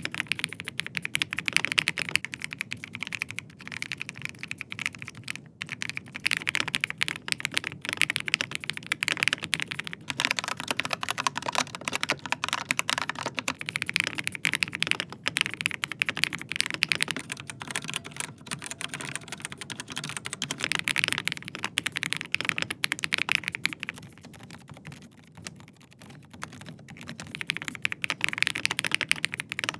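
Typing on a series of mechanical keyboards in turn, fast runs of key presses with clicky, clacky strikes. About three-quarters of the way in, the typing turns much quieter for a few seconds, on a keyboard with Gateron Silent Red linear switches.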